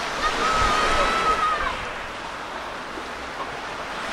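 Small sea waves washing steadily onto a sandy shore. In the first second and a half a thin, wavering, whistle-like tone sounds over the surf.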